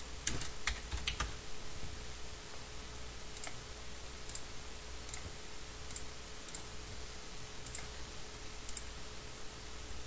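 Computer keyboard keys tapped in a quick run of several strokes in the first second or so, then single clicks spaced roughly a second apart, over a faint steady hum.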